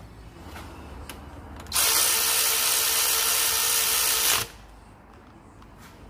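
Cordless power tool running at one steady speed for about two and a half seconds, then stopping abruptly, after a couple of light knocks.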